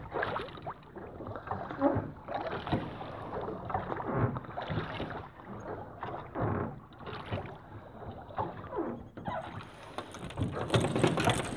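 Oars of a small rowboat pulling through the water in a steady stroke: a splash and knock about every two seconds.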